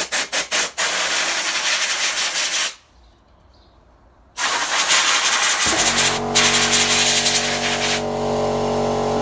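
Compressed-air blow gun hissing in a few quick short blasts, then in two long blasts with a pause between, blowing dirt off engine sensors. About six seconds in, a steady hum starts under the hiss and keeps running, the air compressor's motor starting up.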